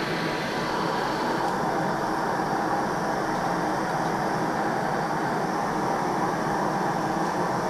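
Two Bernzomatic TS4000 propane torches burning steadily into a small crucible melting kiln: a continuous, even rushing hiss.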